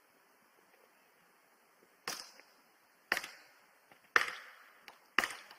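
Four sharp blows struck on wood, about one a second, each with a short decaying tail; the third is the loudest.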